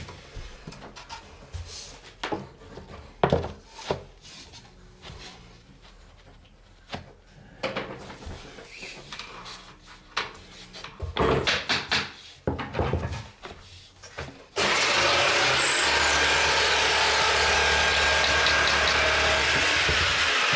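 Laminate boards being handled and fitted: scattered knocks and clicks. About fifteen seconds in, a power saw starts suddenly and runs steadily, cutting laminate.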